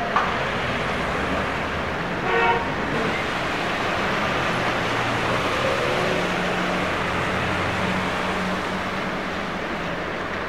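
Street traffic with a short vehicle horn toot about two seconds in, followed by the low engine hum of a box lorry as it passes.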